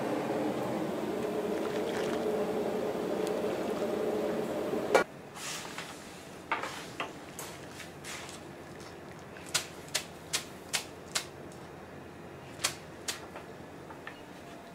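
Steady rushing of a gas cooking range and boiling pot, which cuts off abruptly about five seconds in. Then come a string of sharp taps and clicks, several in quick succession, from a wire-mesh noodle strainer and chopsticks as boiled ramen noodles are lifted out and drained.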